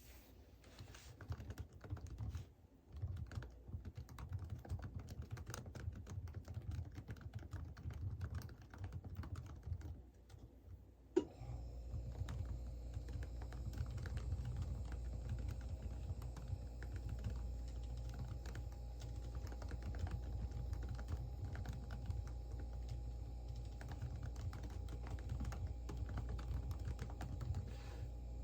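Computer keyboard typing: quick, uneven key clicks throughout. About a third of the way in there is a sharp click, and a steady hum with faint steady tones comes in under the typing.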